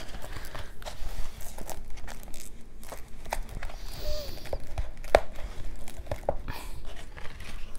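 Thin plastic mesh moss pole being handled and pressed together, its pieces crinkling, creaking and clicking irregularly, with a few sharper clicks, as the stiff plastic is forced shut.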